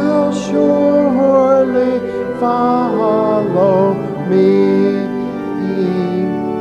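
A hymn being sung: a man's voice singing with organ accompaniment.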